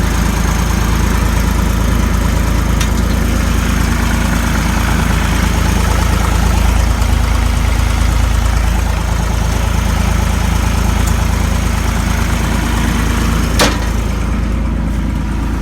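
John Deere 260 skid steer's three-cylinder diesel engine idling steadily, shortly after a cold start. A single sharp click comes near the end.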